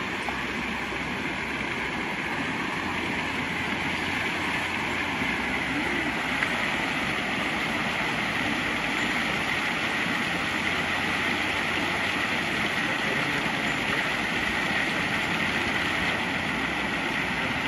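Waterfall rushing steadily, an even, unbroken noise of falling water close by.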